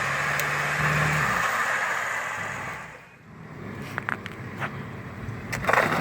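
Off-road vehicle engine running steadily, fading away about halfway through, followed by a quieter stretch with a few sharp clicks.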